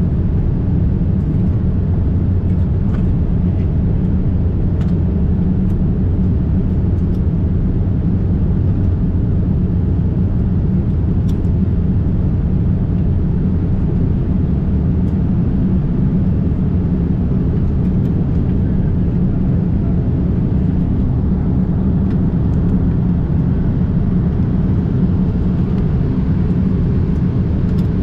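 Steady low rumble inside the cabin of a Boeing 787-8 airliner in flight, from its engines and the air rushing past, with no rise or fall.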